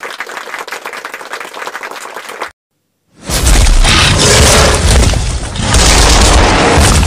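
Applause sound effect, a dense patter of clapping for about two and a half seconds, cutting off sharply. After a short gap, a loud explosion-like boom sound effect, heavy with deep rumble, that keeps going.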